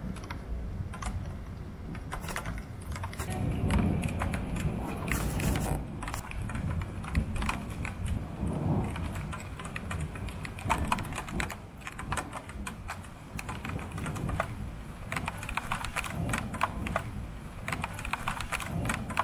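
Thunderstorm: big raindrops tapping irregularly close to the microphone, many sharp clicks over a low steady rumble.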